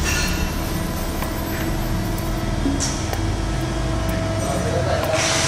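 Sheet-metal shear running with a steady mechanical hum, with a few light metallic clinks from stainless sheet being handled on its bed. About five seconds in, a loud steady hiss starts.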